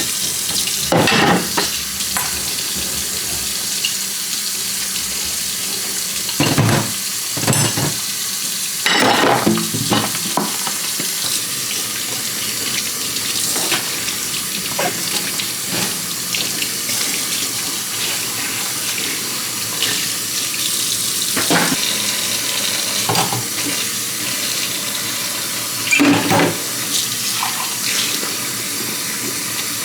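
Kitchen tap running steadily into a sink while dishes are washed by hand, with dishes knocking and clattering against each other now and then.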